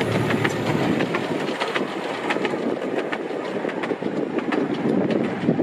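Miniature railway carriages running along the track, heard from on board: a steady rolling rumble with irregular clicks as the wheels pass over the rail joints.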